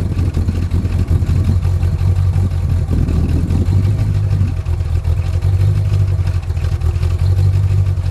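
A 1960 Chrysler 300F's 413 cubic-inch wedge V8, fed by two four-barrel carburettors on a cross-ram intake, idling steadily, heard at the tailpipes.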